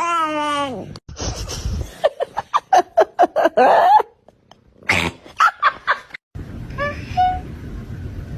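A string of short cat sounds, one after another: a falling meow, then a rapid run of quick repeated calls, then a few brief chirps.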